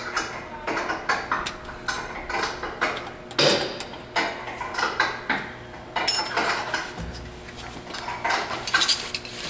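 Irregular clicks, taps and light metallic clatter of hands handling the pump parts, fittings and wiring inside a paint tinting dispenser.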